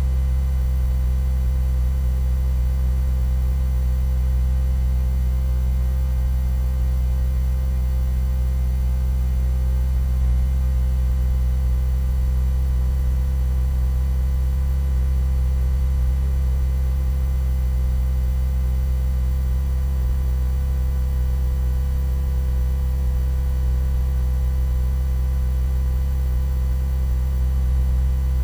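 A steady, unchanging low hum with no other events, like an electrical mains hum.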